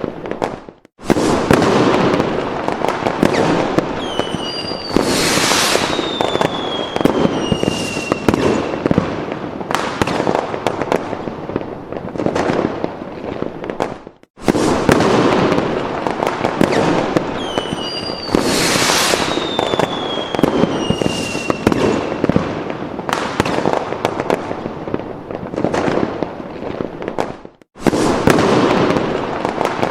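Fireworks sound effect: dense crackling and popping bursts with a few whistles that glide down in pitch. It loops, dropping out briefly about every 13 to 14 seconds and starting over.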